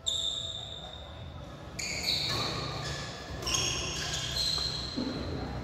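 Sports shoes squeaking on a badminton court floor during a doubles rally: a string of sharp, high squeaks, one at the start and several more overlapping from about two seconds in.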